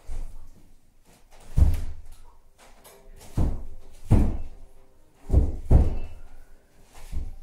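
A series of heavy, dull thuds at uneven intervals, about six or seven in all, each with a short ring-out in the room, two of them coming close together just past the middle.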